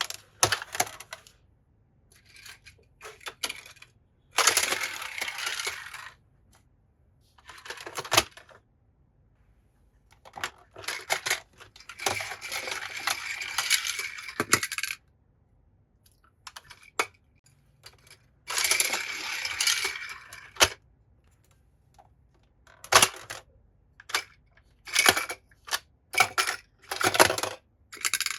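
Small toy cars clicking and clattering against a plastic track, with three rolling runs of about two seconds each as cars roll along it.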